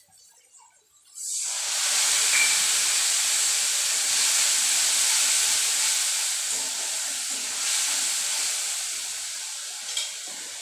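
Loud sizzling as wet ground cumin and dried-chilli paste goes into hot oil and onion-tomato masala in a kadai, throwing up steam. It starts suddenly about a second in and slowly dies down while it is stirred with a ladle.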